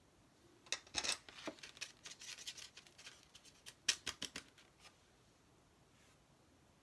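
Faint, short scratchy brushing and tapping of a paintbrush working paint on a paper-plate palette and the painted piece, in three clusters about one, two to three, and four seconds in.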